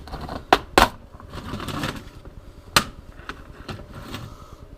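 Sharp clicks and rustling of small plastic tackle containers and fishing hooks being handled: three distinct clicks, the first two close together, with softer rattling between them.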